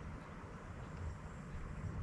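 Faint steady outdoor background noise: a low rumble under an even hiss, with no distinct splash or knock.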